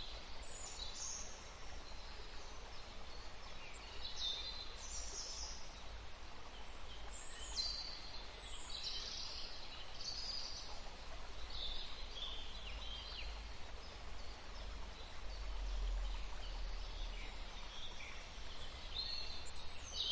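Forest ambience: songbirds calling in short, scattered phrases over a steady hiss of running water.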